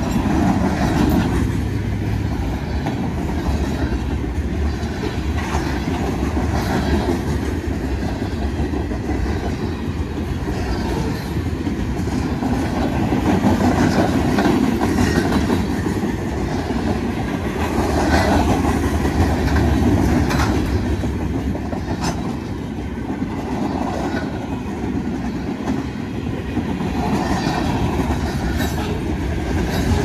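Freight cars of a manifest train rolling past at close range: a steady rumble of steel wheels on rail with a clickety-clack and scattered sharp clicks as the trucks cross rail joints.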